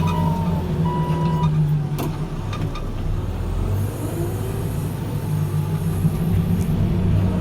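Diesel engine of a New Holland backhoe loader running steadily while working. A reversing alarm beeps through the first second and a half, and there is a sharp click about two seconds in.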